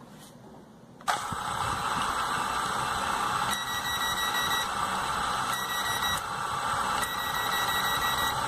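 A small repaired drone's motors start up about a second in and run steadily with a whir. A high-pitched tone switches on and off several times over it.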